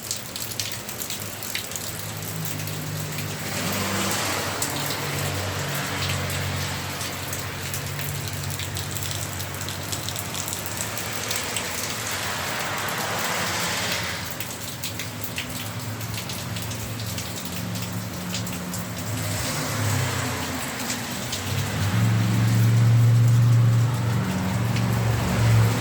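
Steady rain falling, a speckled hiss of drops. The hiss swells and fades three times, about four, thirteen and twenty seconds in. A low hum grows louder near the end.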